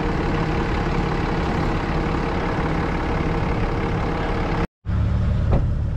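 Heavy vehicle engine idling steadily. Sound cuts out briefly about three-quarters of the way through, and after that the idle is louder and deeper.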